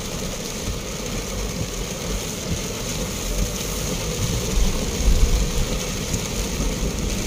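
Car driving through heavy rain, heard from inside the cabin: steady engine and road rumble with tyres on a wet, flooded road and rain on the car, the low rumble swelling briefly about five seconds in.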